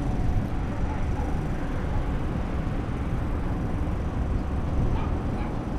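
Steady low rumbling background noise, with no distinct event standing out.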